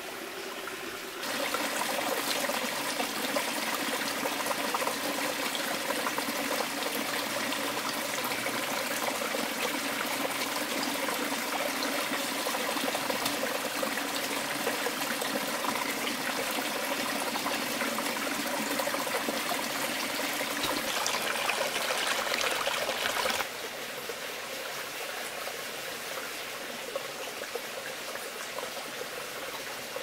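Steady rush of flowing stream water. It gets louder suddenly about a second in and drops back just as suddenly about three-quarters of the way through.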